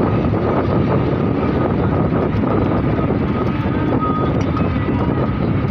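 Steady rush of road and wind noise from a moving vehicle, with a faint steady whine above it.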